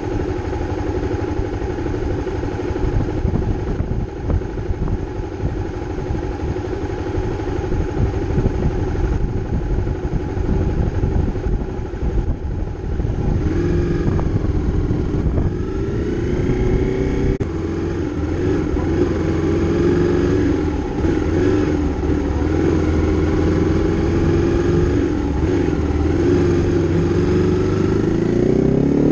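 Honda CRF250's single-cylinder four-stroke engine idling for about the first half, then pulling away through the gears. Its pitch climbs and drops back at each shift, and climbs again near the end.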